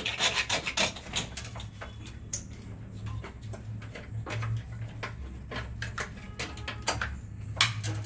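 A knife scraping insulation off electrical cable, with rapid sharp clicks in the first second, then the rubbing and scraping of wires being worked into a distribution panel, with a few scattered clicks over a steady low hum.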